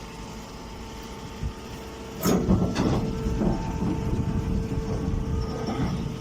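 Chopped-hay bagging baler running with a steady machine hum. About two seconds in, a louder mechanical rumble and clatter sets in, with a couple of sharp knocks, and it eases off near the end.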